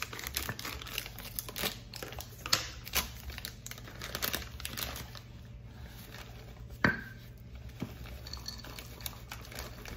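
Crinkling and rustling of a packet of roasted peanuts being handled and tipped over a wooden mortar, a string of small crackles, with one sharp knock about seven seconds in.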